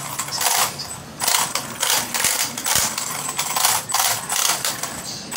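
WLtoys 104001 RC car's motor and drivetrain running in short bursts of throttle, about two a second, with a harsh rattling grind. It is the horrible sound under power that the owner puts down to a fault in the rear end.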